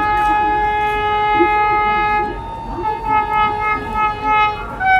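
Vande Bharat train's horn sounding one long continuous blast, its pitch shifting about halfway through and again near the end, over a low running rumble.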